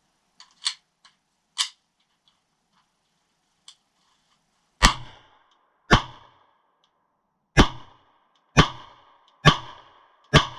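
Sig Sauer Copperhead 9mm short-barrelled pistol firing six shots at an uneven pace of about one a second, starting about five seconds in, each shot with a short echoing tail. Two fainter, sharper cracks come in the first two seconds.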